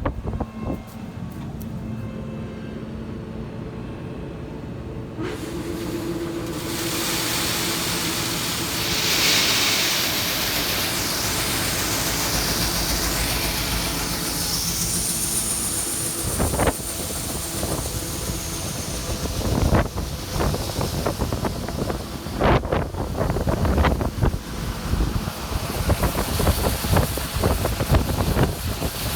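Heavy farm machinery engine running steadily, with wind buffeting the microphone and scattered knocks and rattles in the second half.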